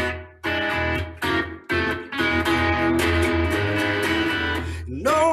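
Guitar strumming chords in a live song: a couple of short chords, then a chord left ringing for about three seconds over a steady bass line. A voice comes in singing near the end.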